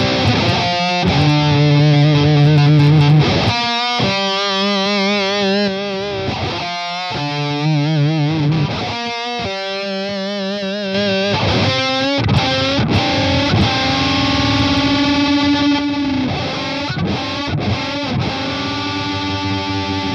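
Electric guitar played through a Caline Nasty Bear fuzz, a Big Muff-style fuzz, with a clean boost pedal in the chain. Saturated held notes and chords sustain with wide vibrato, with fresh picks and short breaks between phrases.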